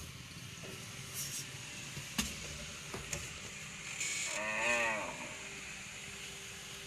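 A cow mooing once, a single arching call about a second long a little past the middle, over steady background noise with a few faint clicks.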